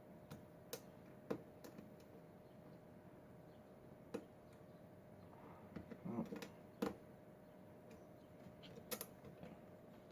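Light, sporadic metal clicks and small scrapes of a lock pick and tension wrench working the pins inside a Schlage pin-tumbler lock, over a faint steady hum.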